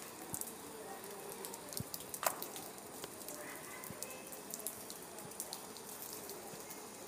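Faint steady outdoor hiss with scattered light ticks of dripping rainwater.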